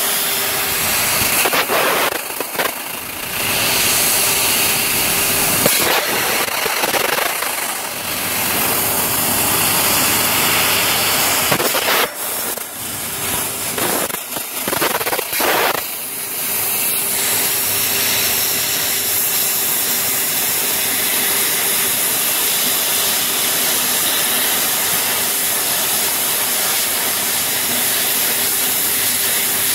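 Fiber laser cutting machine cutting sheet metal: a loud steady hiss of assist gas from the cutting head, under a steady machine hum. The hiss breaks off and restarts several times in the first half as the head moves between cuts, then runs on evenly.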